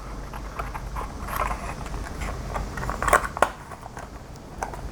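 A small cardboard box being opened by hand: scattered rustling and light clicks, with a few sharper clicks about three seconds in, over a steady low hum.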